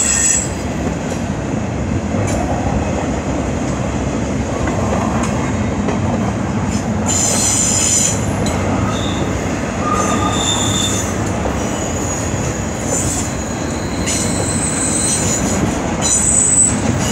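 CN double-stack intermodal freight cars rolling past with a steady rumble, their wheels squealing in high tones that come and go several times.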